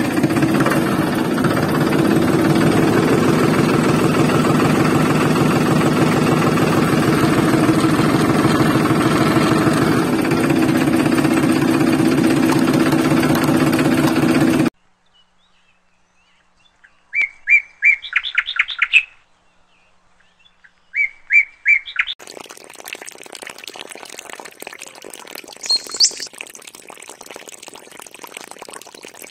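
Electronic background music that cuts off abruptly about halfway through. Two short runs of quick bird chirps follow, then a steady hiss with one brief high whistle.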